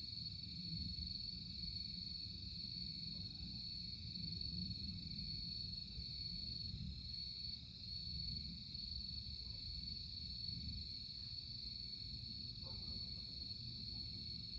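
A continuous high, even chorus of night insects trilling without a break, over a low steady rumble.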